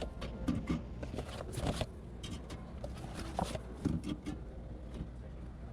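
Irregular knocks, clicks and rustles of drink cans and cardboard packs being handled, over a steady low hum.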